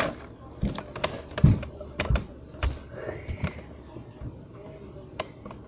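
Irregular clicks and soft thumps of objects being handled and knocked, about a dozen over a few seconds.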